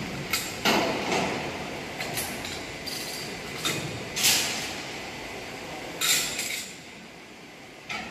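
Sharp metallic knocks and clinks from work on a mechanical parking lift's steel platform, about six in all, over a steady background noise that drops off near the end.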